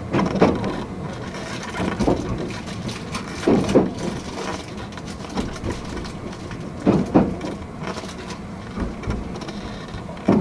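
Wheels of a Fujikyu 8500-series electric train clacking over rail joints in quick pairs, a couple of seconds apart, over a steady rumble of the train running. Heard from the cab.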